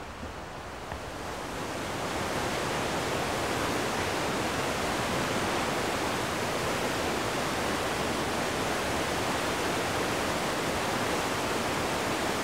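Whitewater torrent of snowmelt rushing over rocks. It is a steady, even rush that swells in over the first two seconds and then holds level.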